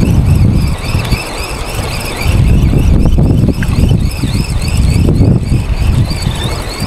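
Strong wind buffeting the microphone in uneven gusts, with a repeated high, wavering squeak running over it about three or four times a second.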